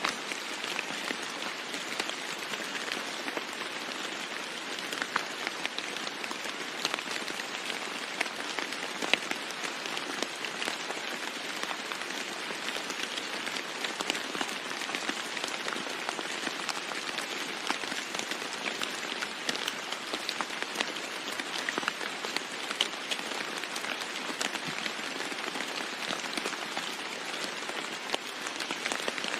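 Steady rain falling on a roof, with many separate drops ticking through an even hiss.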